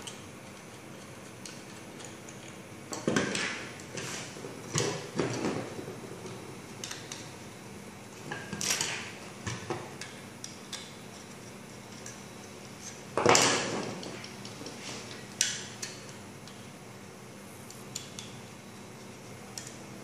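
Handling noise from plastic security cameras and their antennas being screwed on: scattered clicks, knocks and rustles of small hard parts, the loudest about two-thirds of the way through.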